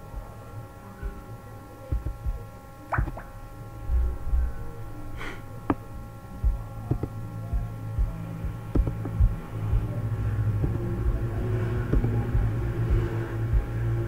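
A steady low hum, growing stronger about halfway through, with a few faint steady high tones above it and scattered short clicks and knocks.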